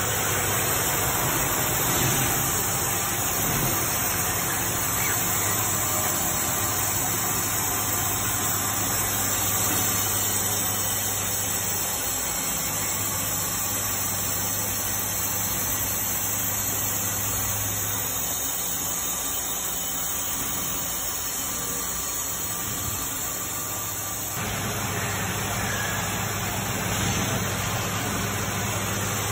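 Hurco VTXU 5-axis CNC vertical machining center running a program, its spindle and end mill milling a metal part held in a vise. A steady high-pitched noise runs over a low hum; the sound eases for several seconds past the middle and picks up again about twenty-four seconds in.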